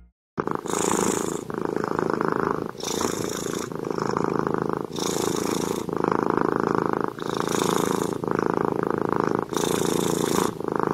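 Domestic cat purring close up, starting about half a second in. The purr goes in steady alternating in-and-out breaths of about a second each.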